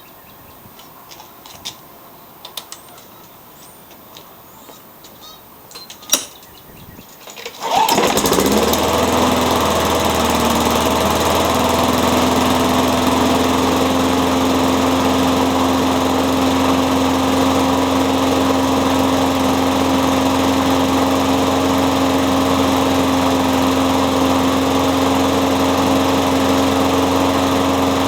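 A few faint clicks, one sharper near six seconds, then the single-cylinder four-stroke Briggs & Stratton Quattro engine of a Husky walk-behind lawn mower starts about eight seconds in. It quickly settles to a steady, even run at constant speed, running well on a new spark plug and carburetor diaphragm.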